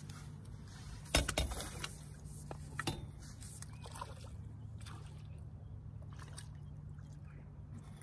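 Water splashing and trickling, with a cluster of sharp knocks about a second in and another just before three seconds.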